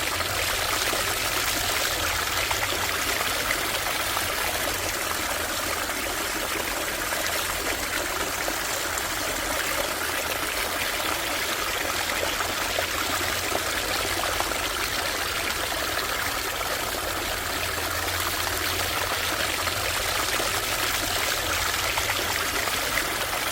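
Shallow stream water running and trickling over stones, a steady rushing babble.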